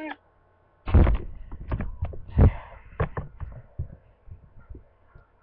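A brief near-silent gap, then a run of irregular knocks and thumps, the loudest about a second in and again near two and a half seconds in, with a faint hum between them.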